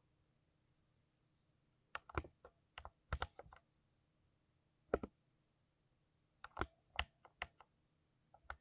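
Computer keyboard being typed on in short, irregular bursts of keystrokes with pauses between them. The first two seconds or so are almost quiet.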